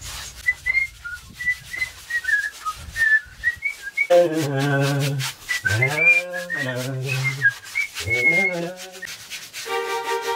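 Paintbrush strokes scraping paint onto a rough concrete pool wall, heard as repeated short scratchy rubs. A whistled tune wavers over them, and a lower wavering tone joins it from about four seconds in until near the end.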